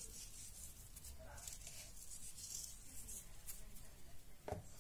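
Faint pattering and rustling of salt sprinkled by hand over raw artichokes, potatoes and cherry tomatoes in a glass baking dish, with fingers moving the pieces about. A couple of soft knocks near the end.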